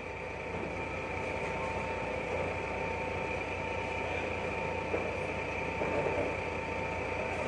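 Forklift engine idling steadily, with a steady whine over its low hum and a light knock about five seconds in.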